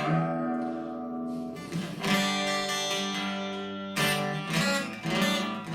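Acoustic guitar strumming a few chords and letting them ring, one about every two seconds.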